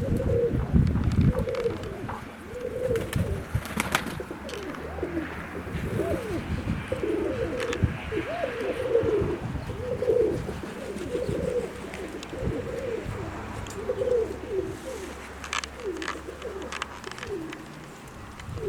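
Domestic pigeons cooing, one call after another about once a second, with a few sharp clicks among them.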